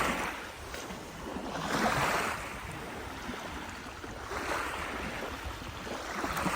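Small lake waves washing onto the shore, surging and receding about every two seconds.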